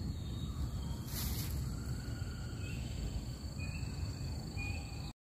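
Outdoor pine-forest ambience: insects shrilling steadily at a high pitch, a few short bird chirps, and a low rumble underneath, with a brief hiss about a second in. It cuts off suddenly near the end.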